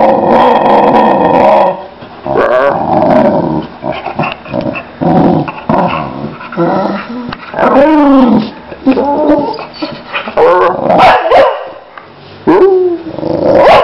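Boxer dog growling and barking in repeated bursts, some calls bending up and down in pitch.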